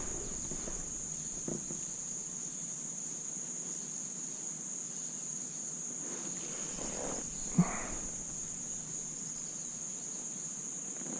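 A steady, high-pitched chorus of insects droning without a break. A single short knock comes about two-thirds of the way through.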